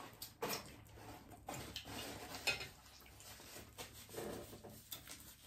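Quiet eating at a table: chewing, with a few light, scattered clicks of a fork against a plate or dish.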